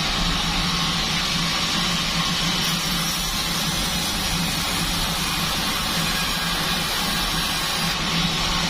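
Large sawmill bandsaw running steadily, a constant machine hum under a broad hiss with no breaks.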